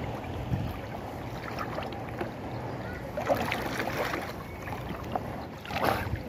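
Seawater lapping and sloshing around people wading chest-deep, with small splashes about three seconds in and again near the end.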